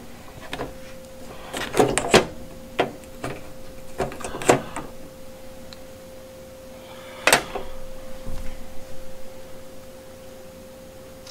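Clicks and knocks of flashlights and plastic blister packs being handled and set down on a tabletop, a scattered string of sharp taps with the loudest knock about seven seconds in. A faint steady hum runs underneath.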